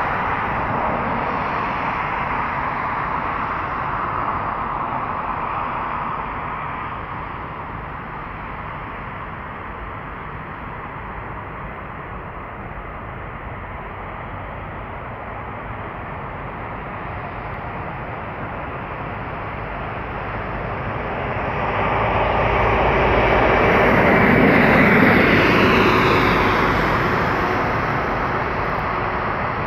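Boeing 787 Dreamliner's Rolls-Royce Trent 1000 jet engines at takeoff thrust, heard as a steady, distant rumble during the takeoff roll. The noise swells to its loudest about three quarters of the way through, with a faint falling whine as the aircraft lifts off and climbs away, then eases.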